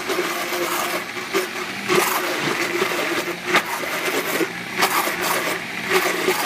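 Countertop blender motor running on a thick avocado and cocoa mousse mixture, a steady drone with irregular sharp knocks.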